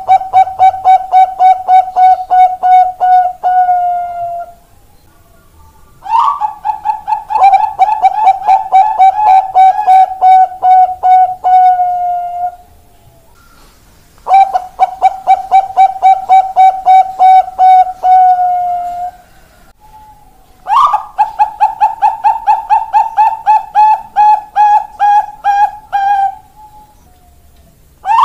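Zebra doves (perkutut bangkok) singing in repeated bouts. Each bout is a fast, even run of cooing notes, about four a second, held on one steady pitch for five or six seconds. The bouts are split by short pauses, four of them in all, with a fifth starting at the very end.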